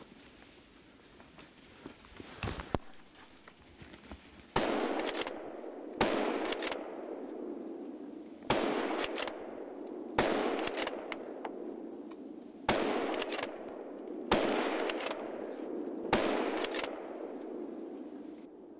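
Hunting rifle fired seven times in quick succession, one shot every one and a half to two and a half seconds, each shot followed by a long echoing tail. A few faint clicks come before the first shot.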